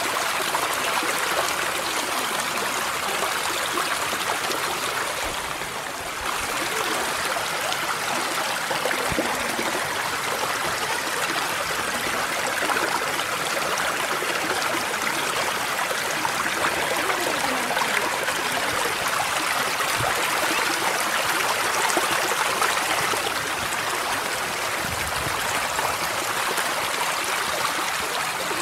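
Mountain stream rushing over rocks, a steady water noise that dips slightly about five seconds in and comes back up abruptly about a second later.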